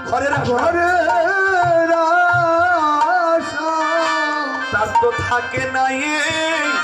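A male voice sings a Bengali devotional kirtan melody into a hand microphone, holding long, wavering notes, over a drum beat that is strongest in the first half.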